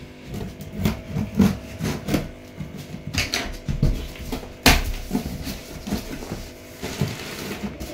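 Cardboard shipping box being opened: a box cutter slitting the packing tape, then the cardboard flaps pulled apart, with irregular scraping, rustling and clicks. A single sharp knock a little past halfway is the loudest sound, over a faint steady hum.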